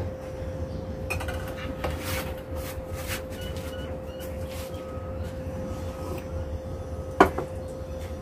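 Scattered light clicks and knocks of objects being handled, with one sharp, louder click about seven seconds in, over a steady low hum.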